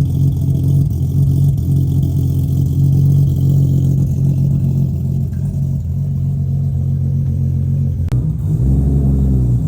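Car engine running loudly at steady revs, then the revs shift up and down near the end, with a single click just before.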